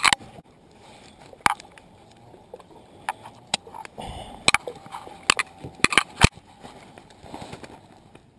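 Handling noises on a plastic fishing kayak: a bass held in a lip-grip tool and laid on a plastic measuring board, giving a scatter of short sharp clicks and knocks, several close together a little past the middle.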